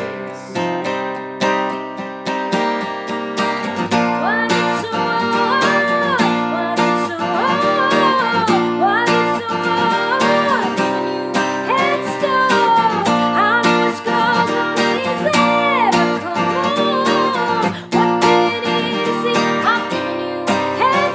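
A woman singing a pop-folk song over a strummed acoustic guitar, with the voice holding long, sliding notes.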